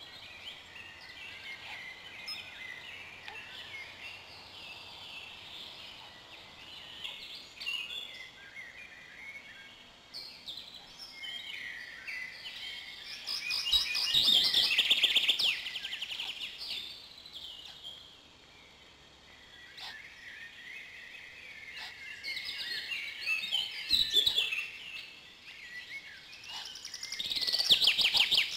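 Forest songbirds singing, several birds overlapping, with two louder passes of fast trilling song about halfway through and again near the end. A few short low knocks come with them.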